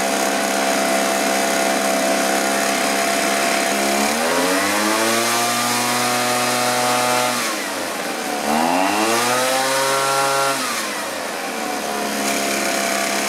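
Two-stroke engine of a Homelite-made Green Machine backpack leaf blower idling steadily, then revved up twice, each time held about three seconds before dropping back to idle. It is running again after its carburetor was rebuilt.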